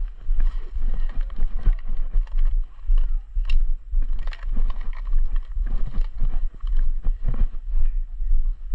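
Footsteps and gear jostling as an airsoft player moves on foot: irregular knocks a few times a second over a steady low rumble on the body-worn camera.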